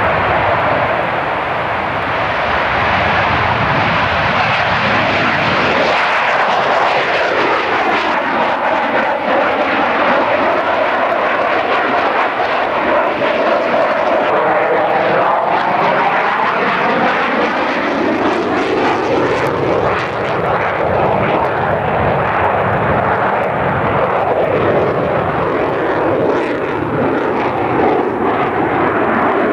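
F-16 fighter's Pratt & Whitney F100 turbofan running in a display flight, a loud continuous jet roar. Through the middle it has a sweeping tone that falls and then rises again in pitch.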